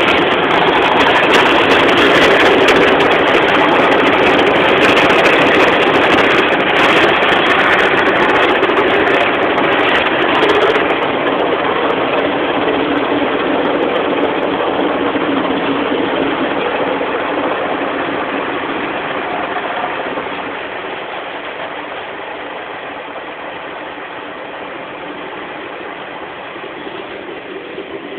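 Automatic car wash heard from inside the car's cabin: water spray and rotating brushes working over the bodywork and windscreen make a dense, steady rush. It is loudest for the first ten seconds or so and eases down from about twenty seconds in.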